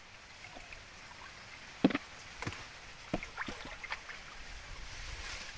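Shallow water sloshing and splashing as someone wades and gropes by hand among palm stems, with a handful of short sharp splashes, the loudest about two seconds in.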